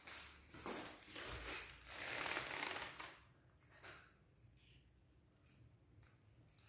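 A cat crunching dry kibble from a bowl, irregular crunches loudest in the first three seconds, then faint and scattered.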